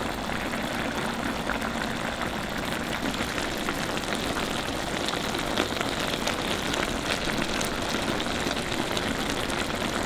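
A pan of pork igado sizzling and bubbling as it simmers: a steady frying hiss with scattered small crackles and pops.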